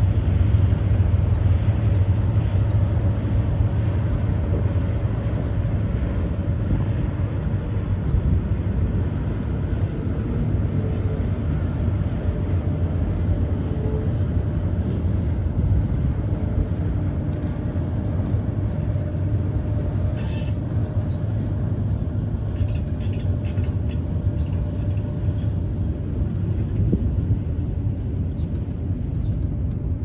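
Double-stack intermodal freight train rolling slowly past: a steady low rumble of wheels and cars on the rails, with faint high chirps or squeaks from about eight seconds in.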